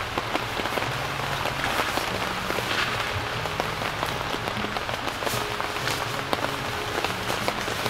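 Heavy rain falling on the tent overhead: a steady hiss with scattered drop ticks, with quiet background music underneath.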